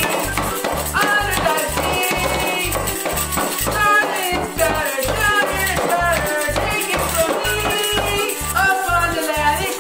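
Upbeat music with a steady beat and a melody, with plastic toy maracas and a toy tambourine shaken along to it in rattling strokes.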